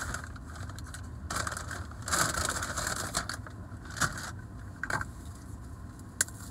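Rustling and crinkling of fast-food packaging being handled, in two stretches of a second or so each, followed by a few short sharp clicks and taps over a low steady rumble.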